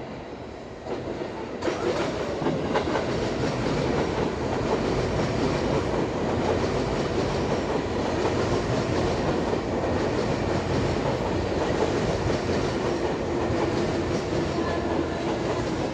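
Seibu Railway commuter train passing close below, its wheels running over the rails. The sound rises sharply about a second in and stays loud and steady.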